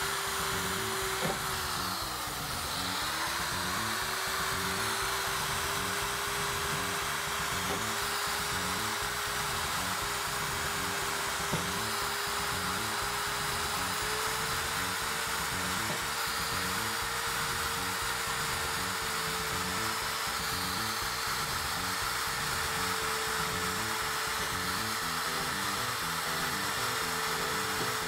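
Corded electric drill running steadily as a long thin bit bores through the plastic rim of a washing machine tub. Its whine drops in pitch about two seconds in as the bit loads up, then recovers, and rises slightly about halfway through.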